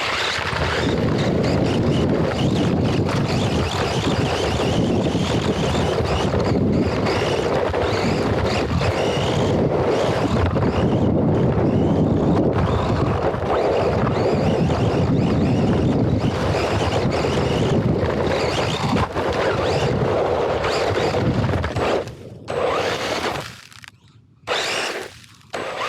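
RC car running hard over dirt, heard from a camera mounted on the car: loud motor and drivetrain noise mixed with gravel and tyre rumble and wind buffeting the microphone. Near the end the noise drops away sharply a few times.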